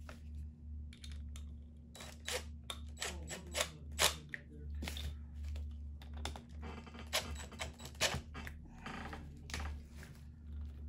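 Sharp clicks and clatter of tools and small wire connectors being handled on a workbench, then a cordless drill-driver running for a few seconds in the second half.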